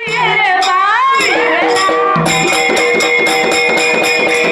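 Dhangari ovi, a Marathi folk song: a high voice sings a sliding phrase. Then a steady held tone carries on over a fast, even jingling rattle beat.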